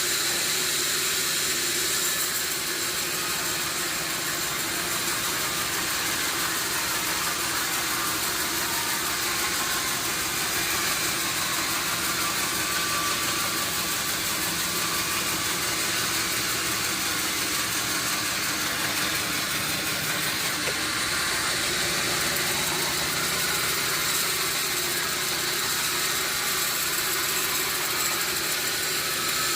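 Sawmill machinery running steadily: an even, unbroken mechanical noise that holds the same level throughout.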